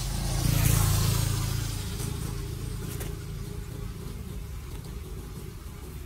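A motor vehicle passing close by on a wet road: engine and tyre hiss swell to a peak about a second in, then fade away.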